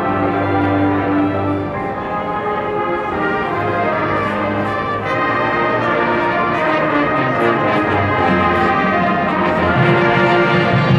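High school marching band's brass and winds playing sustained chords over percussion, swelling fuller in the low end near the end.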